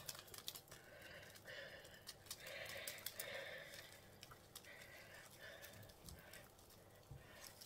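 Faint rustling and crackling of potting soil being pressed and worked by hand into a plastic plant pot, in short repeated spells.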